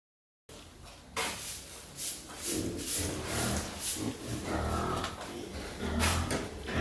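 Pigs grunting, low and repeated, with several sharp knocks mixed in; it starts about half a second in.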